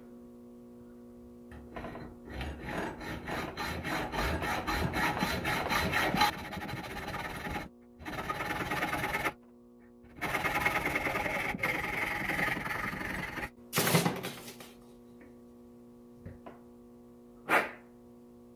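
Hacksaw cutting through the steel oil pump pickup tube of an LS engine, clamped in a bench vise: even back-and-forth strokes in two runs with short pauses, stopping about 13.5 seconds in, followed by a couple of brief knocks near the end.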